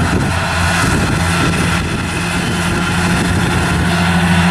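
Large farm tractor's engine running steadily under load while driving front and side disc mowers through standing grass, a continuous low drone with a hiss of cutting and machine noise over it.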